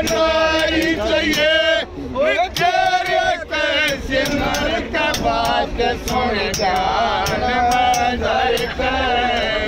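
A group of men singing a song together in a crowded train carriage, with long held, wavering notes, over the steady low rumble of the moving train and repeated sharp taps.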